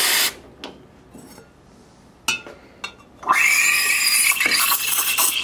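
Rocket espresso machine's steam wand: a purge hiss cuts off just after the start, a few clicks follow, then from about three seconds in a loud, steady hiss with a faint squeal as the wand steams milk in a stainless steel pitcher.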